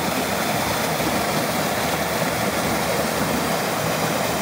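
Waterfall rushing with a steady, even wash of water noise.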